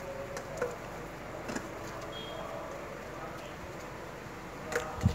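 Quiet outdoor ambience with faint distant voices, a few light clicks scattered through, and a low bump right at the end.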